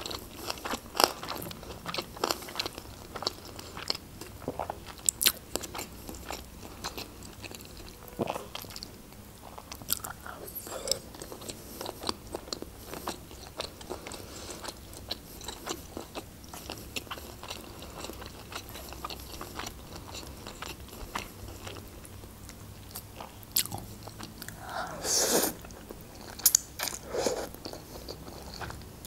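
A person chewing and biting into sushi rolls topped with chuka seaweed salad: many small wet clicks and light crunches. A couple of louder noisy sounds come near the end as noodles are taken with chopsticks.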